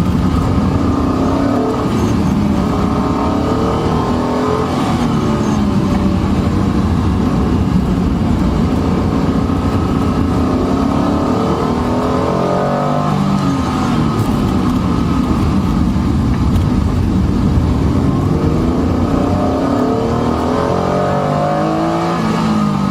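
Honda NSX-R's mid-mounted V6 engine under hard driving, its pitch climbing under acceleration and dropping away again several times as it is driven through corners and gear changes, over a steady background of road and wind noise.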